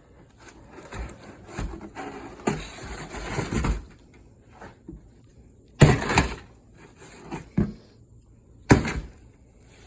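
A heavy camp knife chopping into wood: two hard strikes about three seconds apart in the second half, with a lighter knock between them and scraping, rustling handling noise earlier on.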